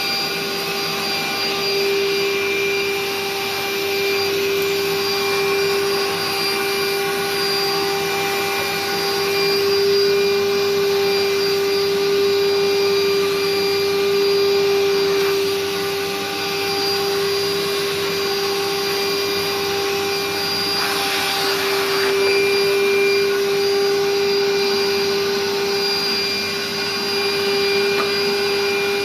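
A Royal-built Dirt Devil Can Vac canister vacuum cleaner with an 1100-watt motor running steadily, a constant pitched whine over the rush of air. About three-quarters of the way through there is a brief louder rush of air.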